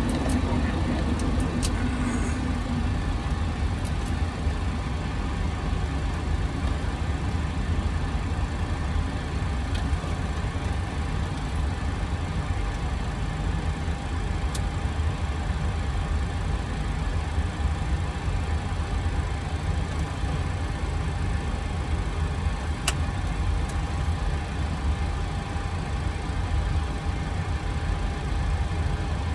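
Boeing Business Jet (737) on the ground during engine start, heard from the cockpit: a steady low rumble with a constant hum, and a few faint clicks.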